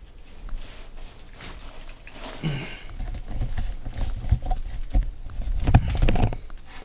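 Knocks, low thumps and scraping as a person clambers through a narrow opening between plywood and OSB attic framing, hands and body bumping the boards. The thumps grow heavier in the second half and peak about six seconds in. A short grunt of effort comes about two and a half seconds in.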